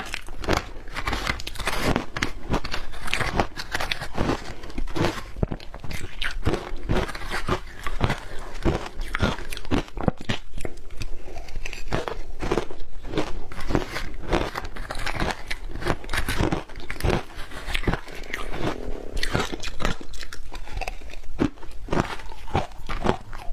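Close-up chewing crunches of shaved ice being bitten and ground between the teeth, about two sharp crunches a second.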